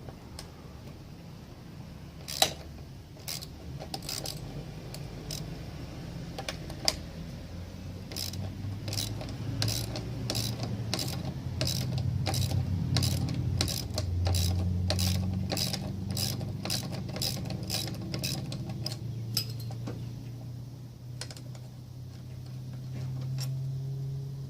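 Hand tool being worked on metal parts: sharp mechanical clicks, a few scattered at first, then a steady run of about two a second through the middle, over a low hum that rises and falls.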